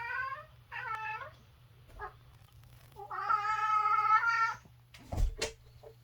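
Domestic cat calling at a bird it sees outside: two short meows, then one long drawn-out wavering call about three seconds in. The owner calls it a strange sound. A couple of sharp knocks follow near the end.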